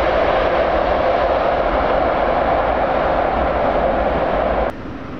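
Jet engine noise from a Boeing 787-9 Dreamliner on its landing rollout, a loud steady rushing roar. It cuts off abruptly near the end and gives way to a fainter steady rumble.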